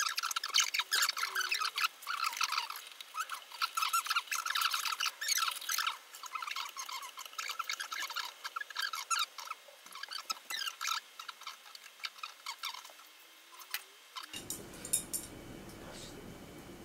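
Fast-forwarded audio: conversation and handling noise sped up into high, squeaky chipmunk-like chatter. About fourteen seconds in the chatter stops and a faint, low, steady room sound takes over.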